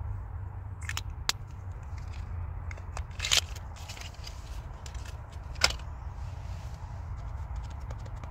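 A few sharp clicks and short scrapes of small makeup containers and tools being handled, the loudest about three and five and a half seconds in, over a steady low rumble inside a car.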